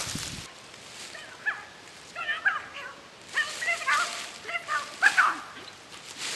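German shepherd whining and yipping in a run of short, high calls that bend up and down, with footsteps crunching through dry leaves.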